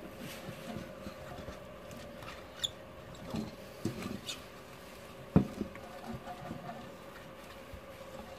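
Silicone pastry brush spreading oil over a metal cake pan: soft brushing with light knocks and ticks from the pan, the loudest about five seconds in. A faint steady hum runs underneath.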